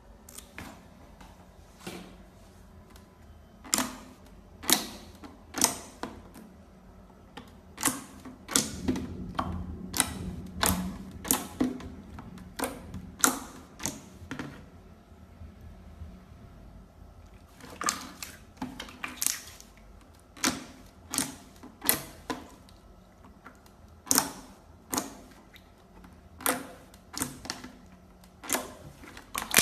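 Slime-filled stress balls being cut with a blade, each cut a sharp, crisp click. The clicks come about one a second in two runs, with a short pause midway.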